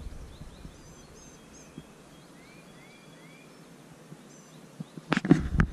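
Faint birds calling, a few short arched chirps and thin high notes, over a quiet background. About five seconds in, a cluster of loud knocks and bumps.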